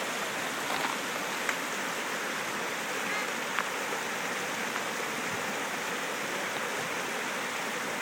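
Creek water rushing over rocks, a steady rush, with a few faint clicks.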